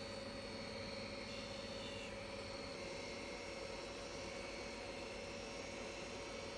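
Steady low workshop hum with a faint steady whine, and no tool cutting wood.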